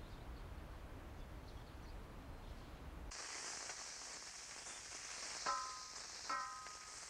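A low rumble, then from about three seconds in, the steady sizzle of food frying in a pan, with two short ringing clinks about a second apart.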